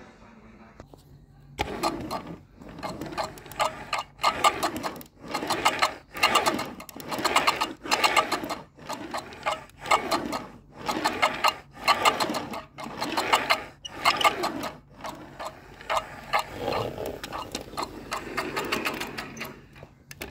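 HO scale model train running, a rapid mechanical clatter that pulses about once a second. It starts about a second and a half in and stops just before the end.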